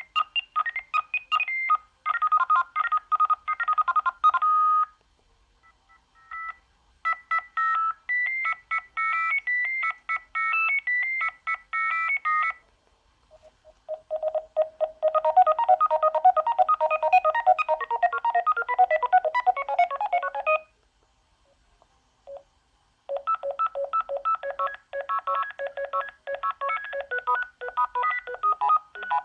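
Sagem my101X mobile phone playing its ringtones one after another: four short electronic beeping melodies, each a few seconds long, with brief pauses between them and a single short beep in two of the pauses.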